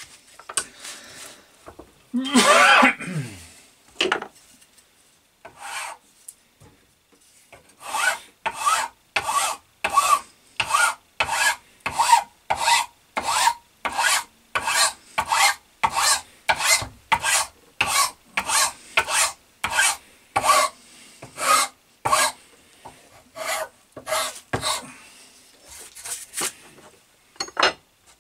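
A hand file rasping along a hickory axe handle in steady, even strokes, about one and a half a second from about eight seconds in, as the handle is shaped and fettled. Near the start there is one loud, brief scrape that falls in pitch.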